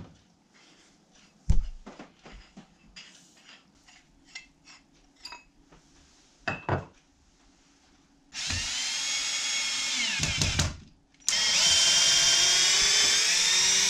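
Cordless drill running in two bursts into the log wall, about two seconds and then a louder run of about three seconds, its pitch holding steady. Before that, light handling clicks and one sharp knock about a second and a half in.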